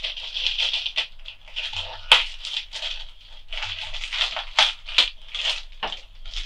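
A plastic bag of foam beads crinkling and rattling as it is shaken and worked open by hand, with a few sharp clicks along the way.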